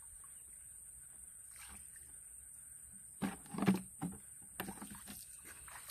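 Hands splashing and squelching in shallow, muddy rice-paddy water while groping for freshwater crabs. A cluster of short splashes comes a little past halfway, with a few softer ones just after, over a steady high hiss.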